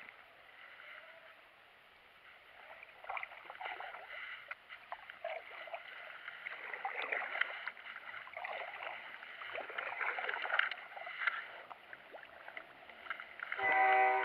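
Kayak paddling: a double-bladed paddle dipping and pulling through the water in irregular strokes, with splashes and drips, as the kayak backs off from the bank cover. Near the end a brief pitched tone is the loudest sound.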